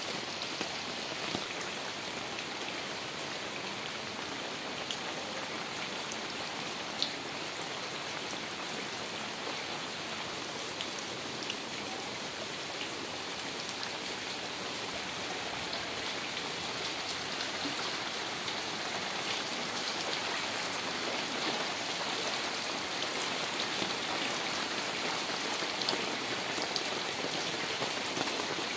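Heavy rain falling steadily onto floodwater and garden foliage: an even hiss of rain with many small, sharp drop hits scattered through it.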